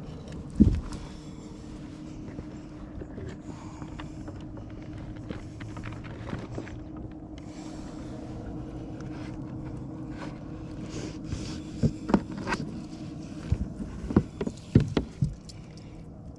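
A sharp thump about half a second in, then a steady low hum, and a cluster of knocks and thumps near the end.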